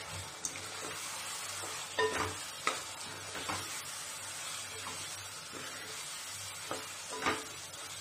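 Wooden spatula stirring chicken pieces and spice powder in a pot, scraping and knocking against the pot now and then, over a steady sizzle of the chicken cooking in its own juices.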